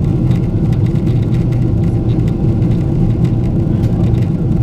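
Steady cabin noise of a Boeing 777-200 in cruise, heard inside the cabin at a window seat: an even, deep rumble of the twin engines and the airflow over the fuselage.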